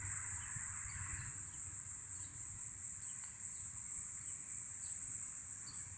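A chorus of insects trilling: a steady, high-pitched pulsing buzz, with faint short chirps scattered through it.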